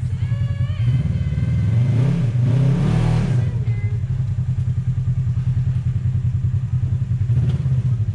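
Polaris RZR side-by-side's engine running at low speed with a steady, pulsing throb. The revs rise briefly about two to three seconds in.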